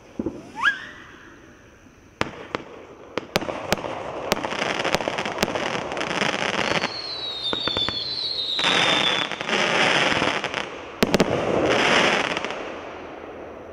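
A Fisherman 'Fatal Darkness' 500-gram firework cake firing. A rising whistle comes first, then a run of sharp bangs over dense crackling, with whistling tones falling slightly in pitch midway and a cluster of loud bangs near the end.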